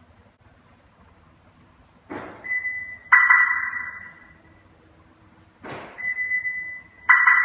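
Dominic Siren Plus aftermarket car siren sounding twice, about three and a half seconds apart. Each time a short rising rush leads into a steady high tone, then a loud chirp that rings out and fades.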